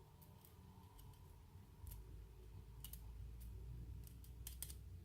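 Faint, scattered small clicks and taps of metal tools being handled, irregularly spaced, with a quick pair near the end.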